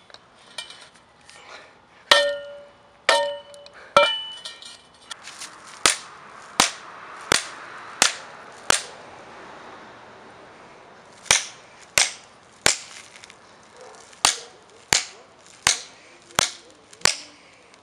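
Specialized carbon-fibre crank arm with its aluminium spider, already cracking, being struck again and again against a concrete step. The first few hits ring like metal, then come two runs of dry, sharp impacts about one and a half a second.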